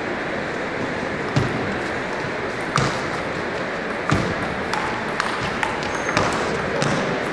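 Celluloid table tennis ball clicking off bats and table during a rally over steady hall noise. There are three sharp hits well over a second apart, then quicker, lighter clicks in the second half.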